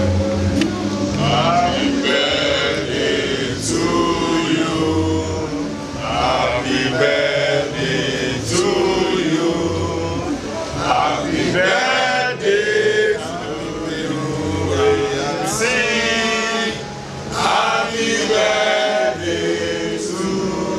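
A group of people singing together, mostly men's voices, with music and a deep bass under them.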